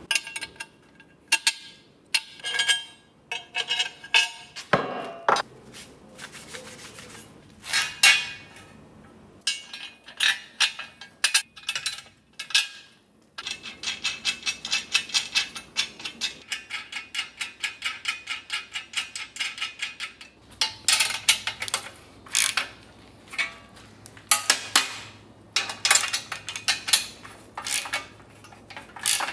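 Hand tools and steel parts at work: bolts, a steel angle bracket and a wrench clinking and knocking together as the bracket is bolted up, a run of separate sharp metal clicks and taps.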